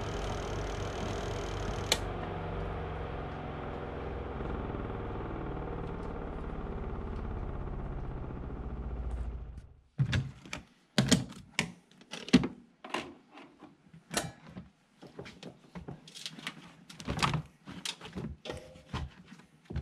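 Twin-tub washing machine's motor running steadily, with one sharp click about two seconds in, then winding down and stopping about nine seconds in. After that, a run of plastic knocks and clatters as the lid is opened and the wet laundry in the wash tub is handled.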